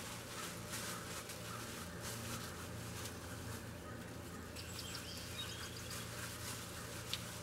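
Outdoor ambience: a steady low hum with faint rustling, a few faint bird chirps around the middle, and a single sharp click near the end.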